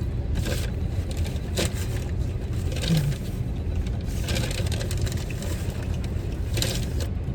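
A person eating French fries: a few short crunching and rustling noises, over a steady low rumble.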